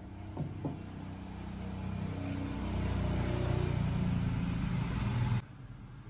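An engine running nearby, growing louder over a couple of seconds and then cutting off suddenly about five seconds in.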